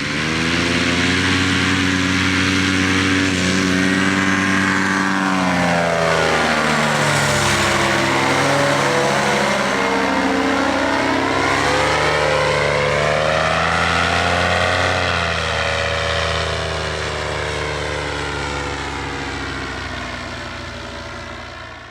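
Polini Thor single-cylinder two-stroke paramotor engine running. Its pitch holds high for several seconds, dips and comes back up, rises again, then settles to a lower steady note.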